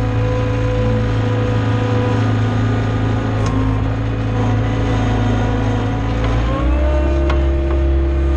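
John Deere skid steer's diesel engine running steadily under load as the bucket pushes straw, its pitch stepping up and holding higher about six and a half seconds in.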